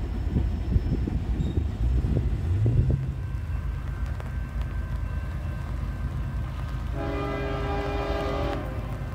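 Freight train wheels clattering over the rails for the first few seconds, easing into a steady low rumble. About seven seconds in, a train horn sounds once for about a second and a half.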